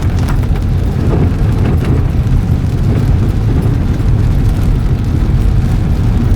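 Heavy rain beating on a car, over the car's steady low rumble, heard from inside the cabin.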